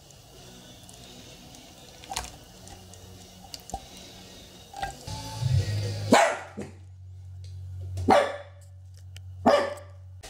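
A dog barking three times: loud, sharp barks about six, eight and nine and a half seconds in. They are excited barks as someone comes home.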